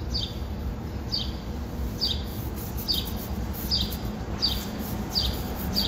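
A bird repeating a short, high, falling chirp at an even pace, a little more than once a second, over a steady low hum.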